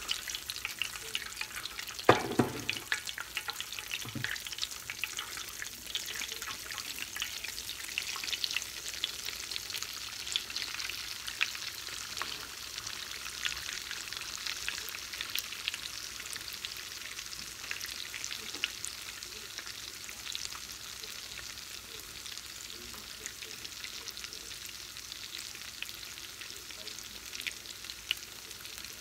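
Hot oil in a cast iron skillet sizzling and crackling with many small pops as battered corn dogs deep-fry. A sharp knock about two seconds in, the loudest sound, and a softer one about two seconds later.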